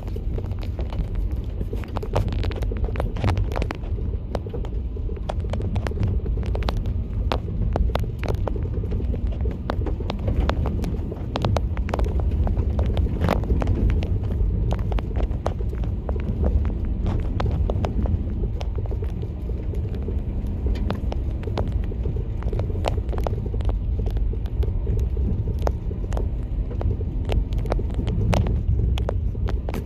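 Renault Duster 4x4 driving through mud: a steady low rumble of engine and tyres, with frequent sharp knocks and clicks throughout.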